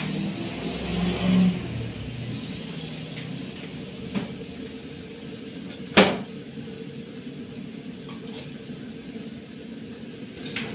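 A steady low hum, with a light click about four seconds in and one sharp knock about six seconds in.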